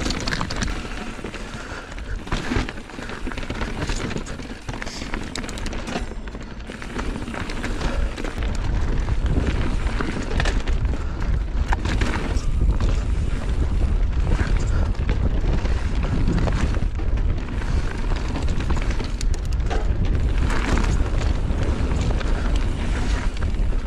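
Wind buffeting the action-camera microphone as a mountain bike rides a rough trail, with knocks and rattles from the bike going over rocks. The low rumble grows heavier about eight seconds in as the speed picks up.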